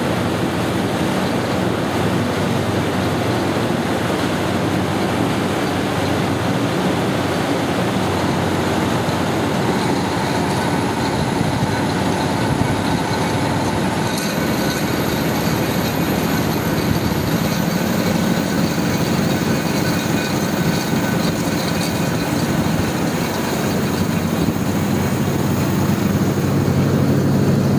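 Perkins diesel engine of an FG Wilson generator set running steadily: a loud, even mechanical drone. A thin high whine climbs in pitch in steps partway through.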